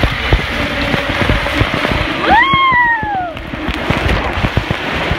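Rider going down a racing water slide: running water hissing over the slide surface with many dull bumps and knocks of the body and camera against the slide. A single falling yell rings out about two and a half seconds in.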